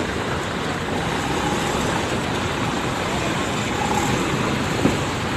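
Intercity coach bus engine running steadily as the bus pulls slowly across the yard.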